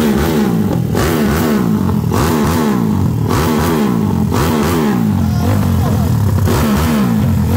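Single-cylinder Honda CG 150-based motorcycle engine with a 70 mm big-bore kit and a snowmobile carburetor, running on pure methanol. It is revved in repeated throttle blips about once a second, the pitch rising and falling back each time.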